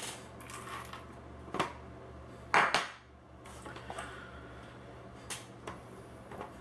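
Tools and small metal parts being moved about and set down on a workbench: a few scattered clacks and knocks, the loudest a quick double knock about two and a half seconds in.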